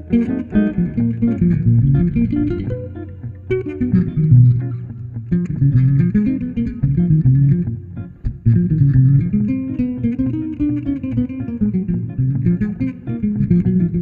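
Instrumental duet of electric guitar and electric bass: a hollow-body archtop guitar plays notes over a moving, melodic bass line, with a brief lull about eight seconds in.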